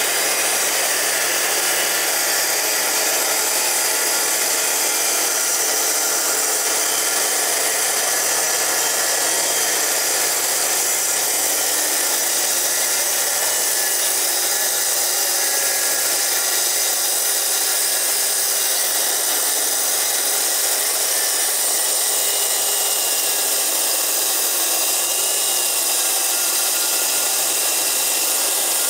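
Power saw, most likely a circular saw, running steadily while cutting lengthwise along the edge of a walnut slab.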